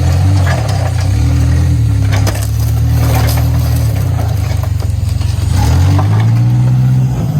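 An engine running with its speed rising and falling, over crunching and cracking of material being crushed, with the sharpest cracks about two to three seconds in.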